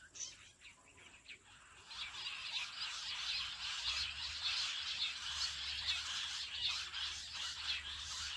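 Jungle bush quail calling: a few faint short whistles, then about two seconds in a dense chorus of rapid chirping calls sets in and carries on.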